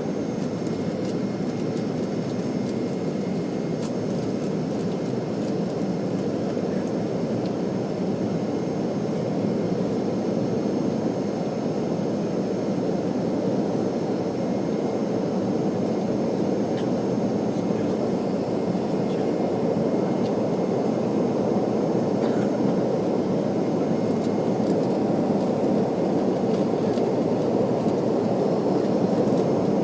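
Jet airliner during takeoff or climb: a steady rush of engine and airflow noise that slowly grows louder.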